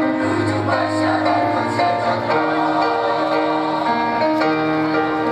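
Mixed choir singing held chords over an instrumental accompaniment.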